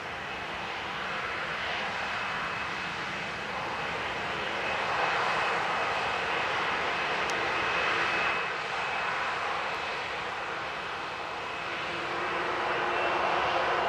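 Boeing 737-800's CFM56-7B jet engines running at low power: a steady roar with a thin high whine, rising a little in pitch and getting louder near the end.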